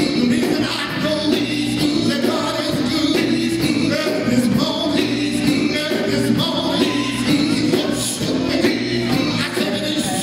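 Live band performing: male lead singing over electric guitars, bass guitar and drums.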